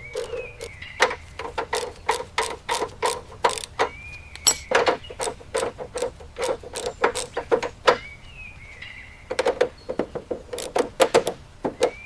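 Ratchet wrench clicking in quick runs as bolts are tightened down, with short pauses between runs.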